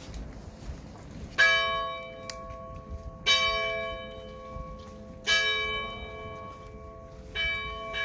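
Church steeple bell tolling: four strikes about two seconds apart, each ringing on and slowly fading into the next.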